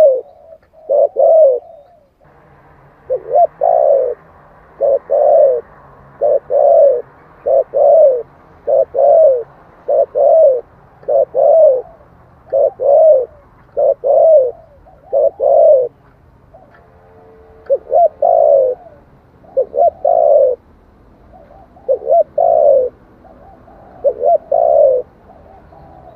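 Spotted dove cooing over and over: short, repeated coo phrases come about every one and a half seconds.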